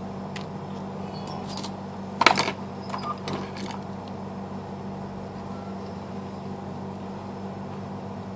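Plastic clicks and clacks of a Lenovo smartphone's housing being handled and pulled apart from its frame, with a sharp cluster of clacks about two seconds in and a few lighter clicks after, over a steady low hum.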